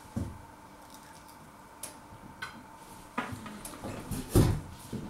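A person chewing a crispy-coated chicken strip: faint scattered crunches and mouth clicks, then one louder thump about four seconds in.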